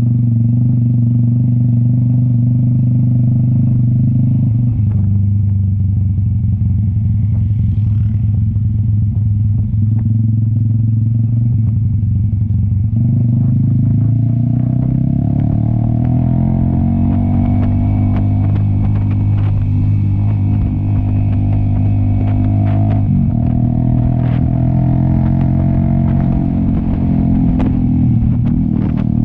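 Cafe 400 motorcycle with an SC Project aftermarket exhaust running under way uphill, its engine note holding steady and then changing pitch a few times as the throttle and gears change.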